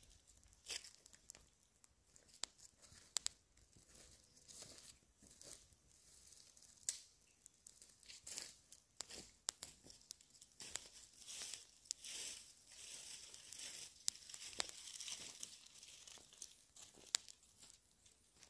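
Campfire crackling, with irregular sharp pops and snaps over a soft hiss that swells and fades.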